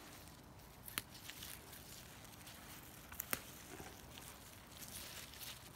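Faint rustling of stinging nettles handled by a gloved hand as the tops are picked, with a few sharp clicks: one about a second in and two close together just past three seconds in.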